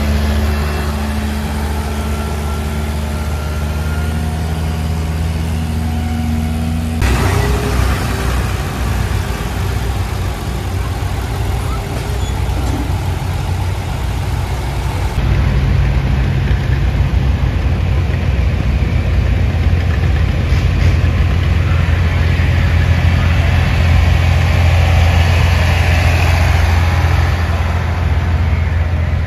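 Tractor engines at a tractor pull. First an Oliver Row Crop 66's four-cylinder engine holds a steady note. About seven seconds in it gives way to a louder, rougher low drone as a John Deere tractor drags the weight sled down the track under load.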